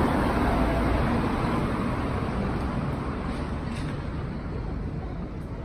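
Street traffic noise: a steady low rumble and hiss from passing cars that slowly fades.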